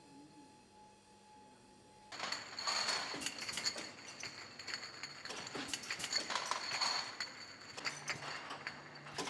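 Bottling line running: glass beer bottles clinking and knocking against one another on the conveyor and rotary tables, over machine clatter and a steady high whine. It comes in suddenly about two seconds in, after a quiet start.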